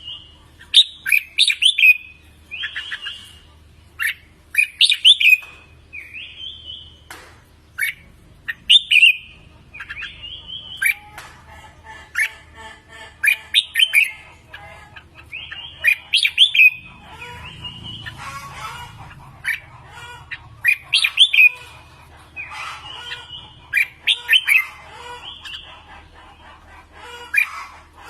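Red-whiskered bulbuls singing: short, bright warbled phrases repeated every second or two, crowding together and overlapping for a few seconds in the middle.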